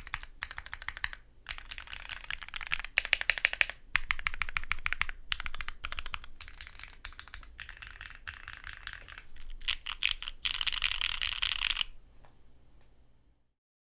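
Typing on a Neo 70 gasket-mount custom mechanical keyboard with an FR4 plate, lubed Cherry Polished Nixie switches and SW Foundation keycaps: a continuous patter of key clacks, with faster, louder runs twice. The typing stops near the end.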